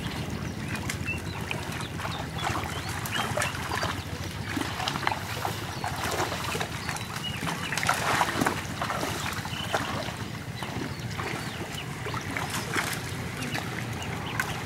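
Shallow pond water splashing and trickling irregularly as a man wades and works a net trap with his hands, over a steady low hum.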